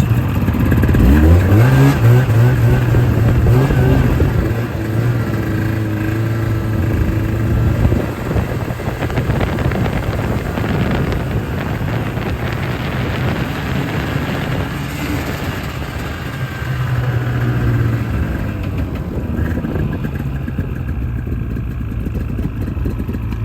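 Small off-road vehicle engine pulling away, its pitch rising over the first couple of seconds, then running steadily, easing off about eight seconds in and picking up briefly again later.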